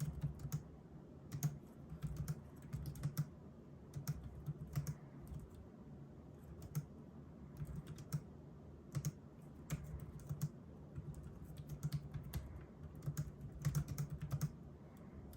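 Typing on a Logitech K380 slim Bluetooth keyboard with round keycaps: rapid runs of soft key clicks with short pauses between words.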